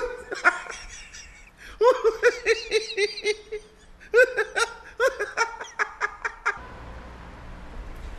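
A man laughing hard in three long bouts of rapid, pulsed ha-ha-ha. It stops abruptly about six and a half seconds in, leaving only a low room hum.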